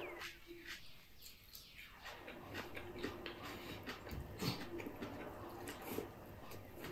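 Close-up mouth sounds of eating noodle salad with chopsticks: chewing with frequent wet clicks and lip smacks. A low hum comes and goes through the second half.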